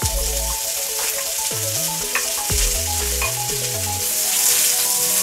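Diced carrots, onions and garlic sizzling in a hot wok, being stirred with a wooden spoon; the sizzle grows louder near the end.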